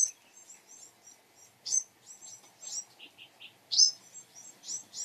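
Small songbirds giving repeated short, high chirps, with louder calls near the start, about two seconds in and about four seconds in, and a quick run of three lower notes about three seconds in. These are plausibly the parent birds calling in agitation at their fledglings leaving the nest.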